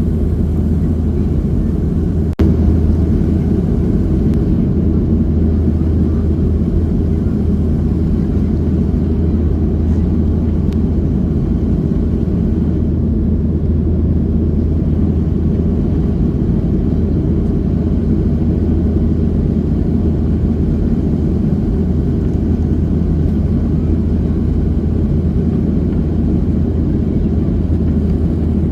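Steady cabin drone of a Boeing 737 airliner in flight: jet engine and airflow noise, deep and unchanging. A single sharp click sounds about two and a half seconds in.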